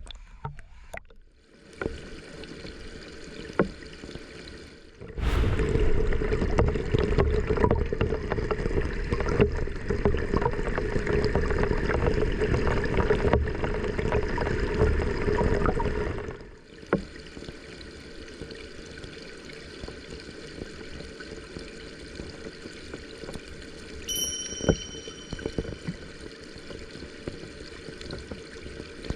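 Mountain stream water rushing and gurgling, much louder for about ten seconds in the middle.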